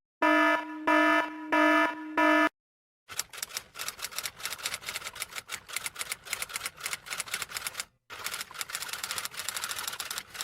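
A quick run of four electronic buzzer beeps, then a typewriter sound effect: keys clacking rapidly and unevenly for several seconds, with a brief pause about eight seconds in.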